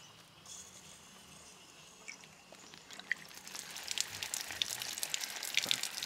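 Water from an outdoor tap starts running out of a pipe end and splashing onto plants and ground. It sets in about halfway through and grows steadily louder to a splashing gush.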